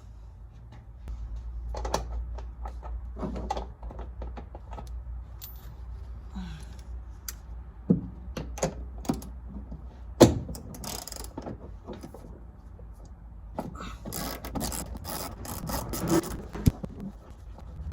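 Hand ratchet wrench clicking in short runs, with scattered sharp knocks of tool on metal, as seat-belt anchor bolts are worked loose in a car's floor. One loud knock comes a little past the middle, and the longest run of fast clicking comes near the end.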